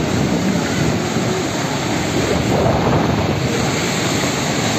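Strong whirlwind wind rushing loudly and steadily, buffeting the microphone.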